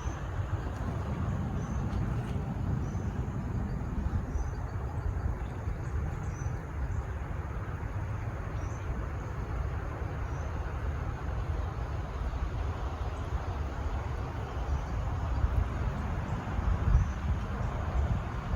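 Outdoor ambience: a steady low rumble with a few faint, brief high chirps scattered through it.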